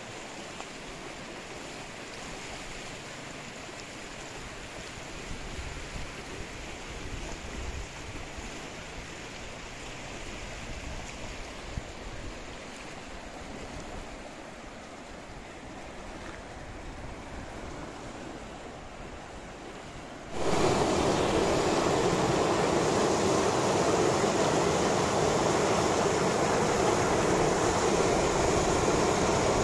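Muddy flash-flood water rushing steadily, with wind gusting on the microphone. About two-thirds of the way through the sound switches abruptly to a much louder, closer rush of turbulent floodwater churning in standing waves.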